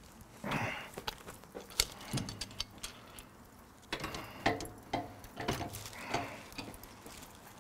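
Metal clinks, knocks and scrapes of a rotisserie spit rod being slid into its mounts on a grill, a handful of separate handling sounds with light clicking between them.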